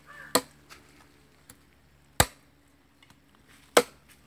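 Knife chopping raw chicken on a wooden log: three sharp single chops, about a second and a half apart.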